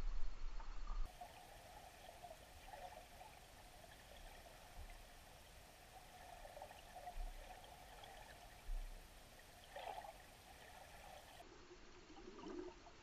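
Water splashing and wind rumble on an action camera at the water's surface for about a second, then a sudden drop as the camera goes under. After that comes faint, muffled underwater sound heard through the waterproof housing, with a few soft knocks.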